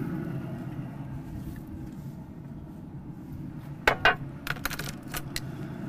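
Metal clinks of a wire rack of grilled shrimp and steel tongs being set down onto a metal sheet pan: one sharp, ringing clink about four seconds in, then a few lighter clinks, over a steady low rumble.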